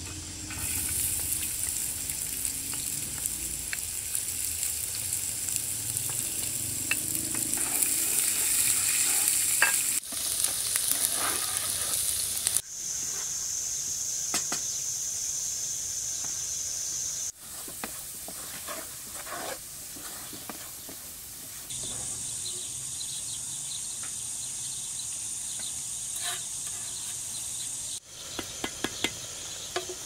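Chopped garlic sizzling in hot oil in a nonstick pot, with the scrape and tap of a wooden spatula stirring it. The steady sizzle changes level abruptly several times.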